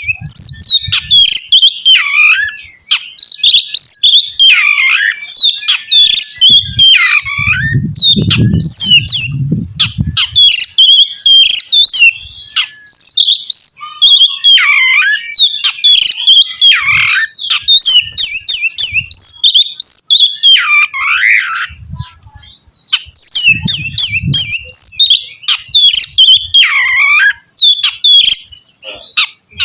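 Oriental magpie-robin (kacer) singing a loud, continuous, fast and varied song of whistles and chattering notes, with many sharp downward-sweeping whistles and only brief pauses. A low rumble sounds under the song now and then, most strongly about a quarter of the way in.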